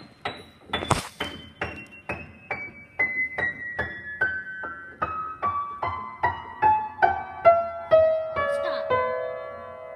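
Piano played one note at a time in a slow descending run, about three notes a second, from the high register down to the middle, ending on a held note that rings on. A sharp knock sounds about a second in.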